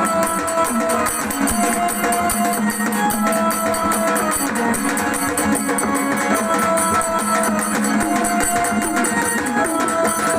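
Instrumental music: a melody of held notes repeating in short phrases over a dense, steady percussion beat.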